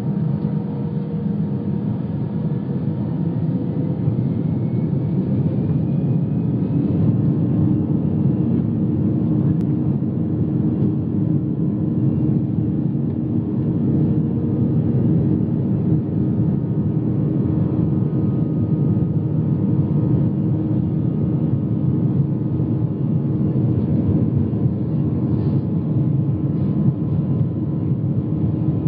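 Jet airliner cabin noise heard from a window seat while the plane taxis: the engines give a steady hum and rumble at low power. A faint rising whine runs through the first several seconds.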